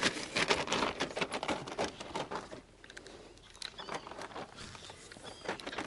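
Rapid, irregular clicking and rustling, densest over the first two seconds or so, then sparser scattered clicks. These are the sounds of an angler handling a fish and spinning tackle in an inflatable boat.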